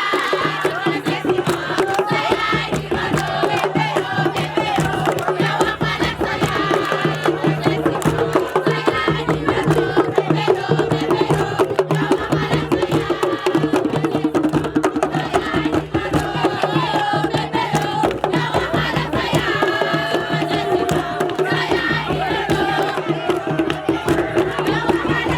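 A group of voices singing and chanting together over dense, rapid percussion.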